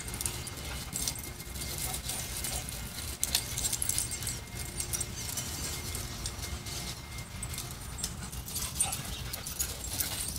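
Two dogs playing rough, chasing and wrestling each other on a grass lawn, with scattered light metallic jingling and quick clicks throughout.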